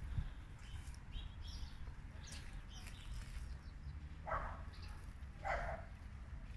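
A dog barking twice, a little over a second apart, in the second half, over a low steady outdoor rumble, with faint high chirps earlier on.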